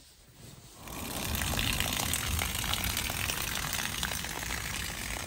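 Garden-hose water rushing steadily through a metal water-filter housing and out of its outlet: the first flush of a new activated-carbon cartridge to rinse out production dust. It comes in about a second in.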